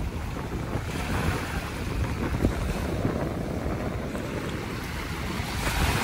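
Small sea waves washing onto a sandy beach, with wind buffeting the microphone. Near the end a wave breaks and rushes up the sand, swelling louder.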